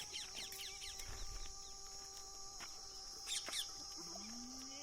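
Small birds chirping in quick, falling notes, thickest in the first second with a louder burst of chirps past the middle, over a steady high hiss. A short, low, arching call comes near the end.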